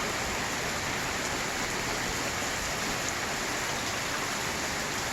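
Steady heavy rain falling and pattering on surfaces, an even hiss with no breaks.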